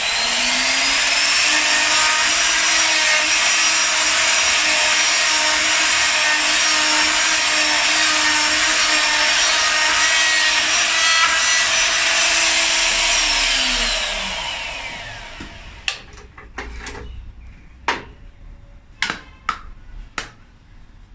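Tianli woodworking mortising machine's spindle motor running at full speed with a steady high whine while its bit cuts a slot in a wooden workpiece. About 13 seconds in the motor switches off and winds down, falling in pitch, and is followed by several sharp knocks and clicks as the slotted workpiece is handled and lifted away.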